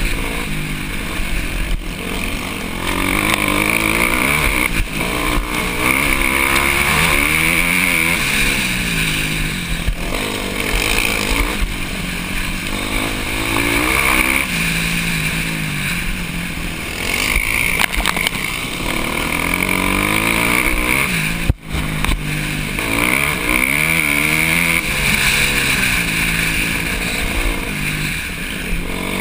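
Dirt bike engine heard close up from the bike being ridden, revving up and down on a dirt trail, its pitch rising and falling every second or two. The sound drops out for an instant about two-thirds of the way through.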